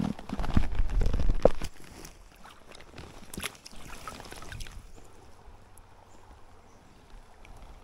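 Water splashing and sloshing in a small stream, with a loud low rumble and clatter in the first second and a half, then scattered small clicks and a quieter even water noise.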